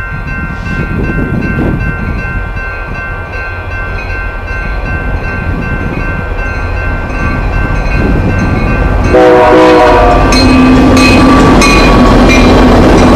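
Union Pacific freight train approaching and growing louder while a grade-crossing bell rings steadily. About nine seconds in, the locomotive horn gives a short blast, and the train arrives with a loud rumble and wheel clicks.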